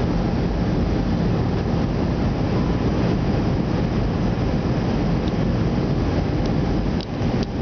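Steady cabin noise inside an airliner descending toward landing: an even, constant rush of engines and airflow. A few faint clicks near the end.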